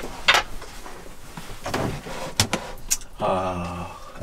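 Knocks and clicks of feet and handling on the wooden floor of a small catamaran's cabin, a few of them sharp. Near the end there is a short low hum.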